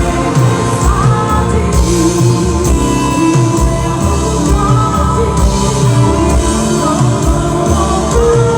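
Band music with drum kit and guitar and a singing voice, a steady beat throughout.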